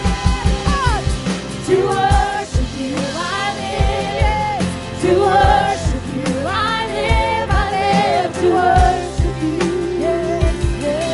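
Live church worship band playing a worship song, with drum kit, guitars and singers' voices carrying the melody over a steady drum beat.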